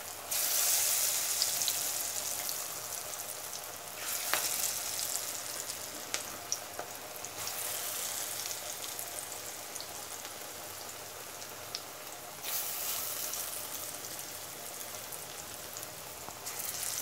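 Cabbage and chana dal pakoras deep-frying in hot oil in a kadhai, a steady sizzle. The sizzle surges each time a fresh dollop of batter is dropped into the oil by hand, about five times.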